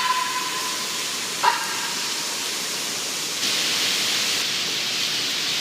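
Steady hiss of falling rain, growing slightly louder about three and a half seconds in. Two short pitched blips cut through it, one at the start and one about a second and a half in.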